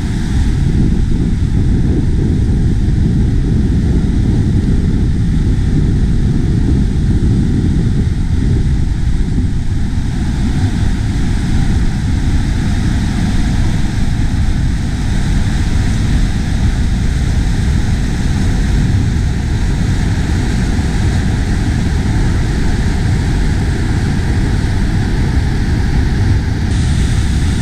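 Whitewater rushing over a dam spillway and down rocky cascades: a loud, steady rush weighted toward the lows.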